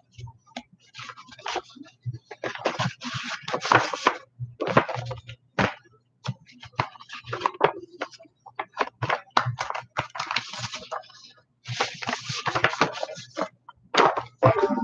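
Sheets of paper rustling and being shuffled as documents are leafed through, in irregular bursts of crinkling and handling noise, with a low steady hum underneath.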